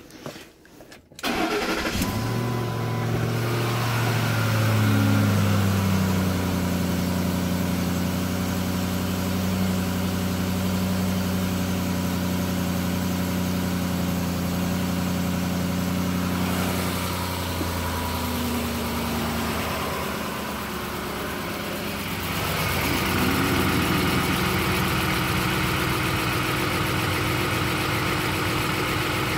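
Ford F-150 5.4-litre V8 cold-starting: it catches about a second in, flares briefly, then settles into a steady fast cold idle around 1350 rpm. From about 22 s the engine sound grows louder with more hiss.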